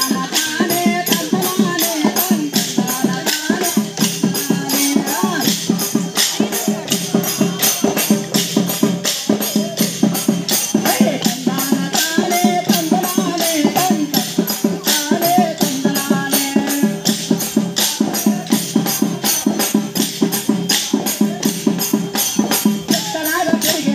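Kolatam stick dance: many dancers striking short wooden sticks together in a fast, even rhythm of sharp clacks, over a folk song sung with sustained accompaniment.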